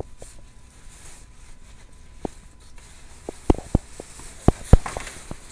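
Clothes being pushed into a plastic bag by hand: faint rustling, then a run of short sharp knocks and thumps in the second half.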